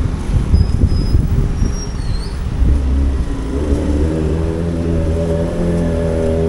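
Roadside traffic on a busy street: a continuous rumble of passing cars, motorcycles and tricycles. From about halfway through, one vehicle's engine hum grows louder and holds steady as it passes close by.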